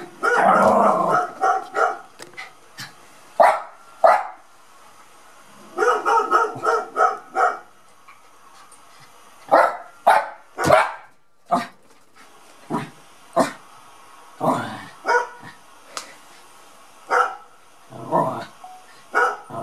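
Small dog barking repeatedly: short sharp barks, sometimes several in quick succession, with brief pauses between runs.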